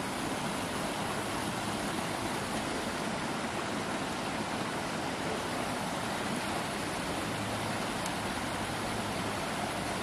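Small woodland waterfall and creek running over rocks: a steady, even rush of water.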